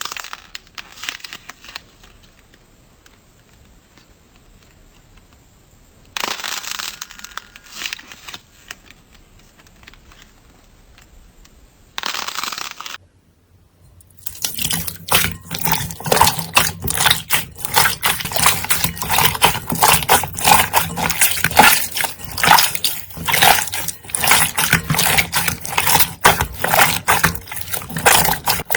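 Slime being handled and squeezed by hand. The first half is mostly quiet with a few short louder squishes. From about halfway through it turns into a dense run of fast crackling clicks.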